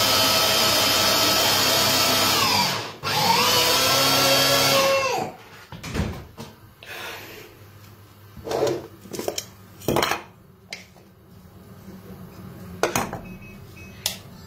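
Small electric food chopper motor run in two bursts of about three and two seconds, each whining up to speed and winding down as it is switched off. Afterwards, a few light knocks and clatters from the container being handled.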